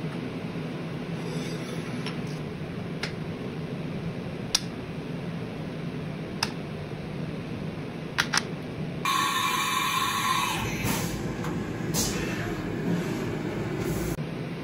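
Machined metal plates clinking now and then as they are set down and stacked on a steel table, as single sharp clicks over a steady shop hum. About nine seconds in, a CNC mill cutting metal with coolant spray takes over, a louder steady machining whine, stopping just before the end.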